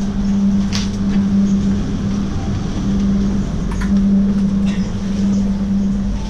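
Steady hum inside a passenger train carriage, a strong low drone with a broad rumble and hiss beneath it, and a few light clicks and knocks.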